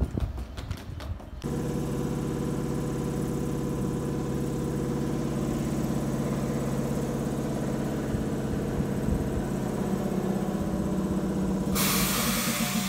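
Wheels of an ex-Tokyu electric train knocking over rail joints for about the first second and a half, then the standing train's underfloor equipment humming steadily. Near the end comes a loud hiss of released compressed air.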